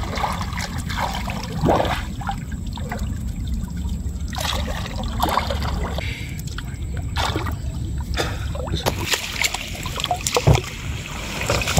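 River water splashing and dripping as people wade and lift a wet fine-mesh net out of the water, in irregular sloshes over a steady low rumble.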